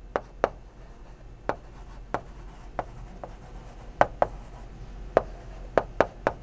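A stylus tapping and sliding on a touchscreen board as a word is handwritten: about a dozen short, sharp taps at an irregular pace.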